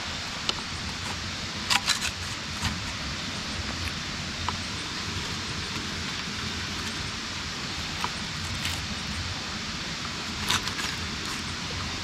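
Steady rushing of a nearby river and waterfall, with a few sharp clacks and knocks of dry half-burnt sticks being moved over the ash of a campfire pit, a small cluster about two seconds in and another near the end.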